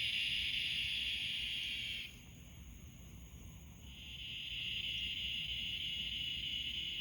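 Night insect chorus of crickets or cicadas chirping in a steady high-pitched drone; it cuts off suddenly about two seconds in and swells back up about two seconds later.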